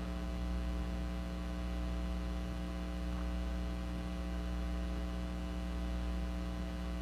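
Steady low electrical hum, a stack of unchanging tones with no other events.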